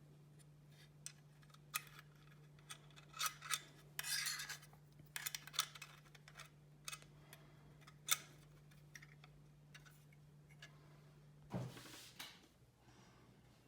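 Scattered small metal clicks, taps and short scrapes of a screwdriver and screws as laptop parts are screwed back together, with a duller knock near the end.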